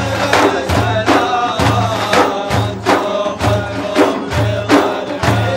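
Ensemble of large frame drums (daf) beating a steady rhythm, a deep bass stroke about once a second with lighter strokes between, under men's voices chanting a melody, in the style of an Iraqi madih (praise of the Prophet) song.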